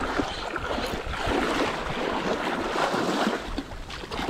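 Ocean surf washing in shallow water at the shoreline, a steady rushing noise, with wind rumbling on the microphone.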